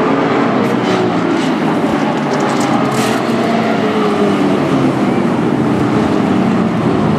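Several short-track race truck engines running hard as the trucks pass one after another, their overlapping engine notes shifting slightly in pitch.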